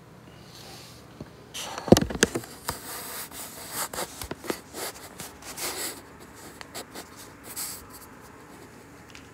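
Close rubbing and scratching sounds mixed with sharp clicks, the loudest clicks coming together about two seconds in. The sounds thin out and stop after about eight seconds.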